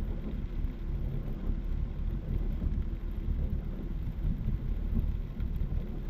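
Heavy cloudburst rain drumming on a moving car's roof and windshield, mixed with tyres running on a flooded road, heard from inside the cabin as a steady rumbling hiss.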